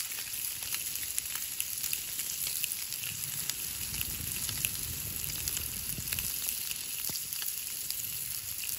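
Steady sizzling hiss with many small crackles and pops.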